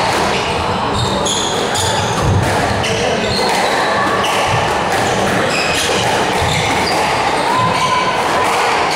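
Squash players' court shoes squeaking sharply and repeatedly on the wooden court floor, mixed with dull thuds of footwork and ball, echoing in a large hall.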